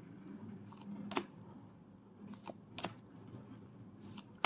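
Tarot cards being handled: a few light clicks spread through a soft rustle.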